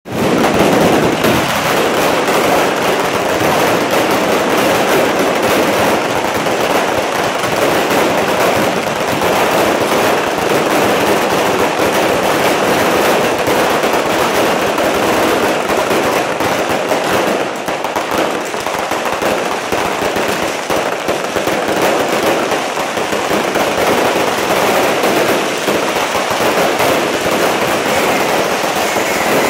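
Fireworks and firecrackers going off without a break, a dense continuous crackle of bangs that eases slightly a little past the middle.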